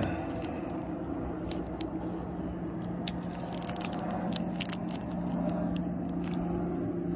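Thin clear plastic sleeve crinkling and rustling, with scattered sharp clicks, as a hard plastic PSA graded-card slab is slid out of it. A steady low hum runs underneath.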